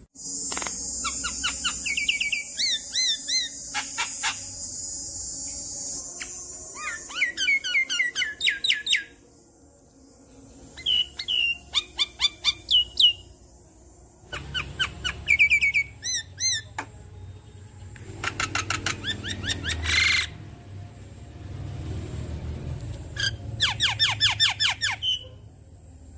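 Javan myna (jalak kebo) singing: phrase after phrase of rapid whistled chirps and squeaky notes, with short pauses between them. A steady hiss sits under the first few seconds.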